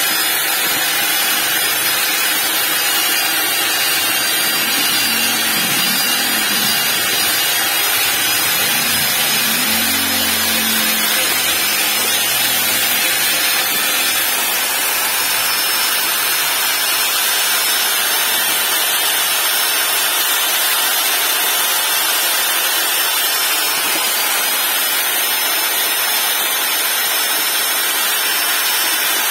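Corded electric drill with a mixing paddle running steadily, churning a thick green soap mixture in a plastic bucket.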